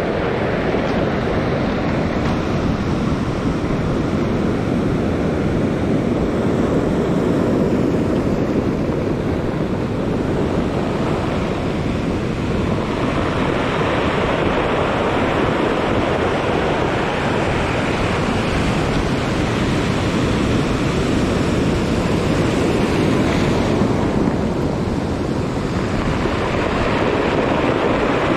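Ocean surf breaking and washing up over a stony beach as a steady rush of noise, swelling louder about halfway through and again near the end as bigger waves come in, with wind buffeting the microphone.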